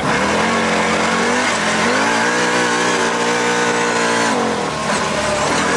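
A vehicle's engine being driven hard: it comes in suddenly, climbs in pitch about two seconds in, holds steady, then drops back a little past four seconds.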